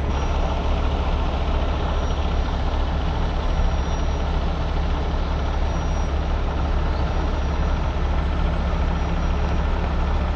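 Heavy truck's diesel engine running steadily at low revs, a loud, even low rumble.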